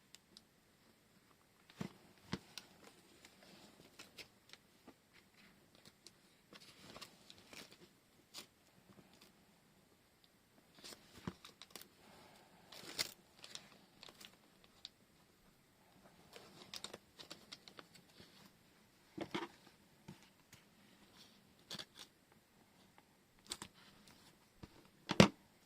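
Washi tape being peeled, torn and pressed onto paper pages: scattered soft rustles, rips and light taps, with a sharper knock near the end.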